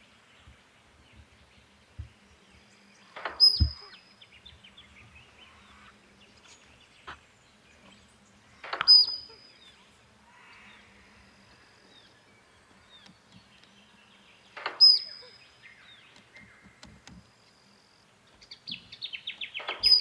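Male musk duck's courtship display call, given three times about five to six seconds apart: each a sudden splashing kick of the feet with a short high whistle. Near the end a rapid run of high chirping notes begins.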